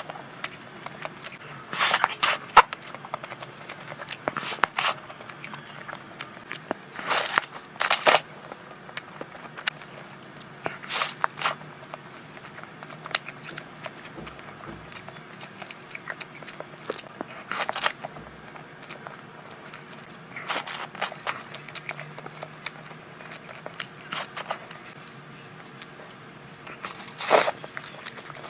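Close-miked eating: bites and crunches into a burger and fried chicken, with chewing in between and a sharp bite every few seconds.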